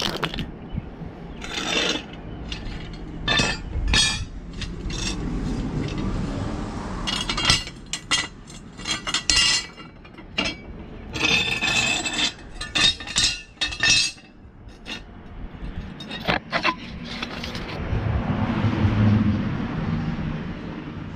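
Steel lawn mower blades clinking and scraping as they are handled and set down on a hard surface: a run of sharp metallic clinks with rough scraping between them. A low rumble swells near the end.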